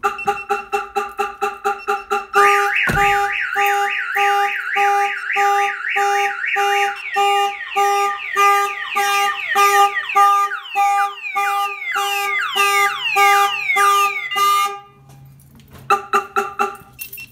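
Viper car alarm siren going off after the door was unlocked by hand, cycling through its tones: rapid chirping pulses, then a pulsing tone with a repeating falling warble. It stops about 15 seconds in, and a short burst of chirps starts again near the end.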